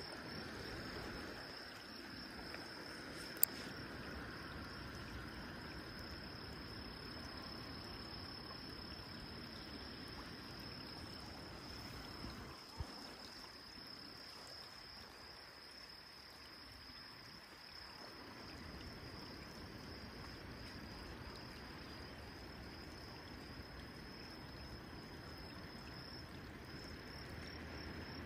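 Insects trilling steadily in one high-pitched unbroken buzz that turns into short pulses near the end, over a low wash of water. A sharp click about three seconds in.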